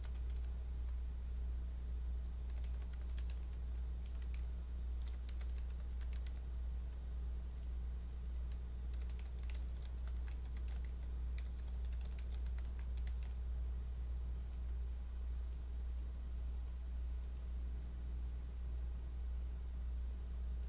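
Computer keyboard typing in quick runs of keystrokes, thinning out after about thirteen seconds to a few scattered clicks, over a steady low hum.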